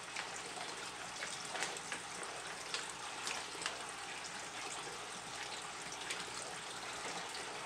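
Steady trickling hiss of water from aquarium filters running, with faint scattered clicks and crinkles of a small packet being handled and opened.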